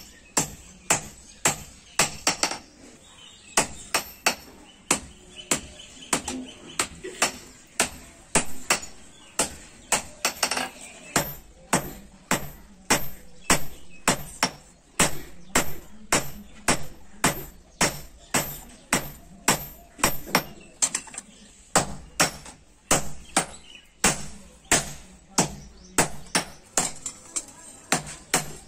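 Hand hammer striking a hot billhook blade on a small steel stake anvil during hand-forging: a steady run of sharp metallic blows, about two a second.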